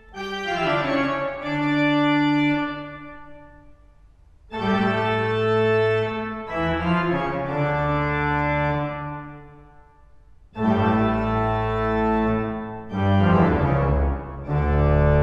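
Huddersfield Town Hall's large pipe organ playing loud sustained chords in three phrases. Each phrase dies away in the hall's long reverberation before the next enters suddenly, and the last phrase adds very deep bass notes. This is a recording made with a 3D microphone array and heard as a two-channel downmix.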